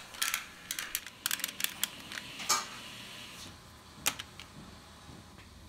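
Stainless steel heat-treating foil being handled: a run of light crinkles and clicks, a short rustle about two and a half seconds in, and one sharp click about four seconds in, then quieter.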